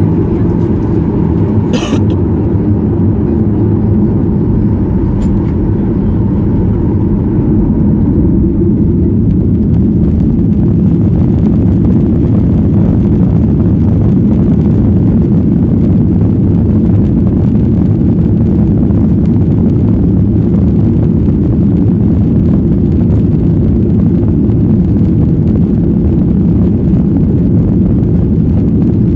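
Boeing 737-800's CFM56-7B jet engines at high thrust heard from inside the cabin during the takeoff roll: a loud, steady low rumble, with a sharp click about two seconds in.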